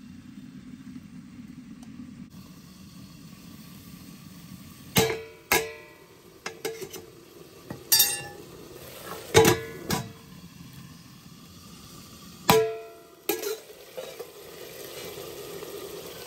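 A low steady background noise, then a series of sharp, ringing metal clanks as the stainless-steel lid and a ladle knock against a black iron wok of buffalo meat cooking covered on a wood fire. Near the end the meat sizzles steadily in the pan.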